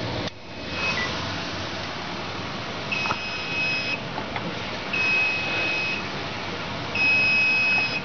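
Silent Knight fire alarm control panel's built-in sounder beeping as the panel powers back up: a short beep just after switch-on, then three steady one-second high-pitched beeps about two seconds apart, over a steady hiss.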